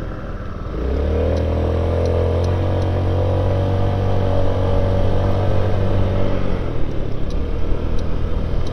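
Yamaha Gear 50cc four-stroke scooter engine picking up speed about a second in, then running at a steady drone. It eases off a little near the end and pulls again right at the close, with wind noise over it.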